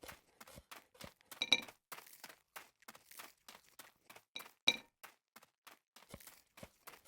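Tableware being handled: small scattered clicks and taps, with two louder ringing clinks, about 1.5 and 4.7 seconds in, as a utensil strikes a hard dish.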